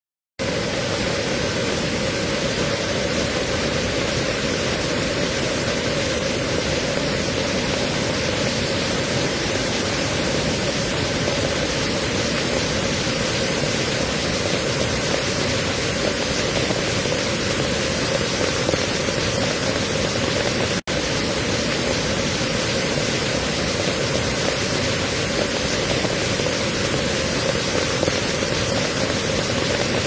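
Waterfall and the white-water stream below it rushing, a loud, steady wash of falling water that cuts out for an instant about two-thirds of the way through.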